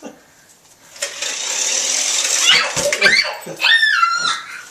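Toy remote-control car running with a steady hiss, then a run of high-pitched squeals with rising and falling pitch from about two and a half seconds in.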